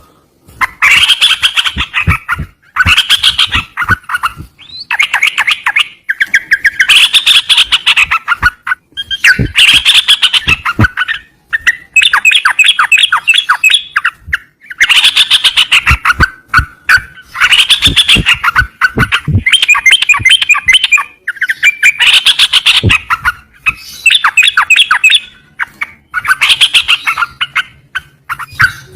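A cerucokan, the yellow-vented bulbul, singing loudly in rapid chattering phrases of about one to two seconds, repeated again and again with short pauses between them.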